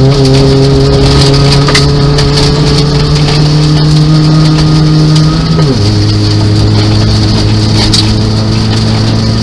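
Nissan Micra 1.0 rally car's engine heard from inside the cabin on a gravel stage, its revs climbing slowly under load, then dropping sharply a little over halfway through as it changes up a gear and pulls on at the lower pitch. Gravel rattles under the car throughout, with a few sharp ticks of stones striking the body.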